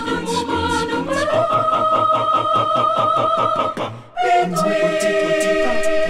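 Mixed group of men and women singing a cappella in harmony, holding a long chord that breaks off about four seconds in, then coming back in on a new sustained chord.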